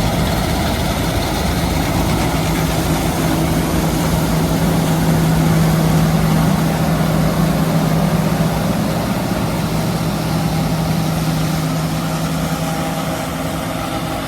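John Deere 9750 STS combine harvesting wheat, its 8.1-litre six-cylinder PowerTech diesel and threshing machinery running with a steady heavy drone, a little louder around the middle.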